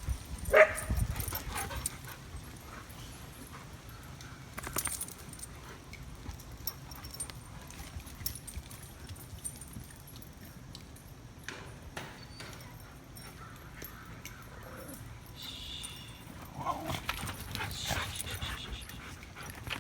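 Dogs giving a few barks, yips and whines, with scattered sharp clicks and knocks in between.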